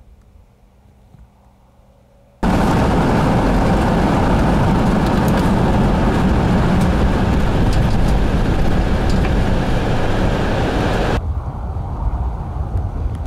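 Faint low hum, then about two seconds in a sudden switch to loud, steady road and tyre noise inside a car driving in rain, with a few light ticks of raindrops on the windshield. Near the end it cuts to a quieter wind rumble on the microphone.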